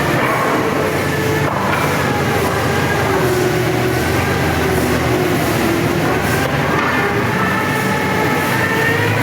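Sawmill machinery running steadily under load, a dense mechanical noise with a whine that wavers slowly in pitch.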